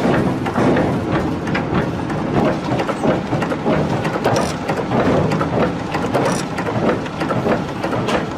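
Mechanical forging hammer striking a red-hot steel hammer-head blank in its die: a rapid, irregular run of heavy metal blows over a dense, rumbling clatter.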